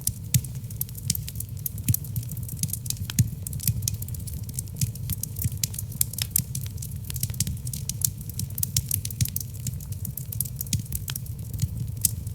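Wood logs burning in a fireplace: dense, irregular sharp crackles and pops over a steady low rumble from the fire.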